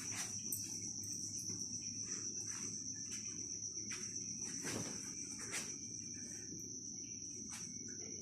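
A cricket's steady high-pitched trill, unbroken throughout, over a low hum of room noise, with a few short knocks from someone moving about, the loudest about five seconds in.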